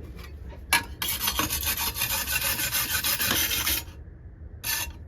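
Brush scrubbed hard across a fresh weld bead to clear the slag: a quick scratch, then about three seconds of steady rasping strokes, and one last short scrape near the end.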